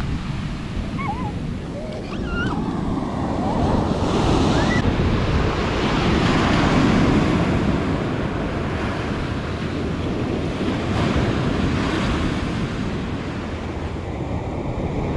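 Ocean surf washing up a sandy beach: a continuous rush of breaking waves that swells about three seconds in, is loudest a few seconds later, then eases. Wind rumbles on the microphone underneath.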